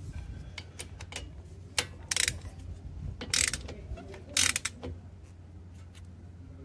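Ratchet wrench clicking as a socket turns a brake caliper slide-pin bolt: a few single clicks, then several short, loud runs of rapid ratcheting in the middle of the stretch.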